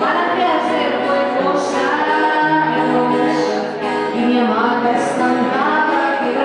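A woman singing to acoustic guitar, holding some notes with a light vibrato over a steady accompaniment.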